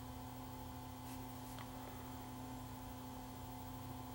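Low, steady electrical hum, with a couple of faint light clicks about a second and a second and a half in.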